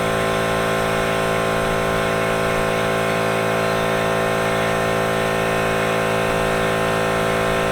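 Air compressor running steadily, a constant motor hum.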